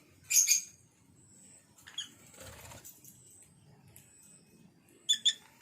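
Lovebirds giving short, sharp, high-pitched chirps: a loud burst about a third of a second in, a single call at about two seconds and another pair of calls near the end, with a brief soft flutter of wings around halfway.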